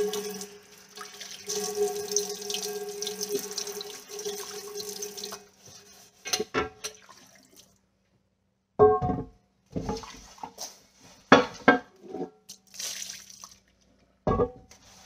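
Kitchen faucet running water into the sink for about five seconds, then shut off. After that, a heavy cast iron skillet is scrubbed with a sponge and handled in the sink, with several short knocks and clanks.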